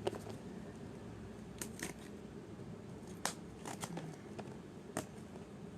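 A parcel being handled and opened: scattered clicks, rustles and small snaps of packaging at irregular intervals.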